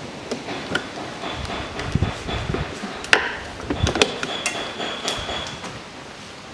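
Plastic push-in retaining clips being pried out of a car's plastic underbody splash shield: a string of sharp clicks and knocks, the loudest about three seconds in, with a few dull thumps and a thin high squeak now and then.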